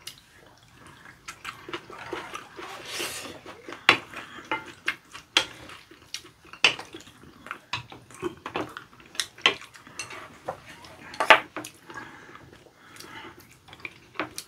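Spoons and chopsticks clicking and scraping against bowls during a meal, in irregular separate clicks, two of them sharper and louder than the rest.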